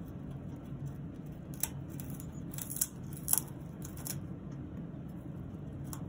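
Congo African grey parrot chewing a wooden perch with her beak: a handful of sharp crunches and snaps of splintering wood in the middle few seconds, over a steady low background hum.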